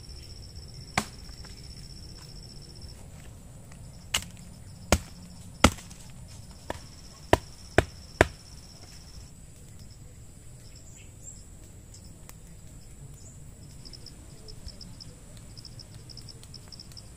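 Wood being chopped: about eight sharp, irregular strikes between one and eight seconds in, the last few coming quicker. Crickets trill steadily underneath, the trill turning pulsed after the chopping stops.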